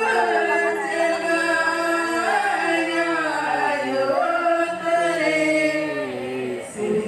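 Women singing a Karma song into a microphone, unaccompanied: a slow melody of long held notes that step up and down, with a short breath break near the end.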